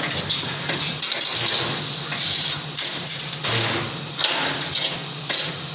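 Automatic CNC wire bending and butt welding machine running through its cycle as it bends wire into a rectangular frame. A steady motor hum runs under repeated short hisses and sharp clacks from its air-driven cylinders.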